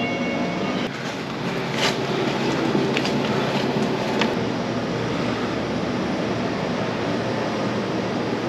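Steady hum of store refrigeration and ventilation, with a few light clicks and knocks, one of them as a glass cooler door is opened.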